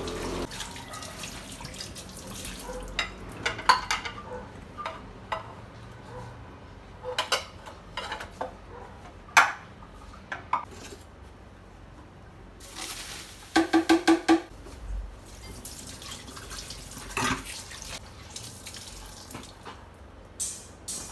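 Tap water running over a glass bowl being rinsed, then glass and ceramic dishes clinking and ringing as they are set into a metal dish rack, with a quick run of ringing clinks about two-thirds of the way in. Near the end, water splashes into the sink as a cloth is wrung out.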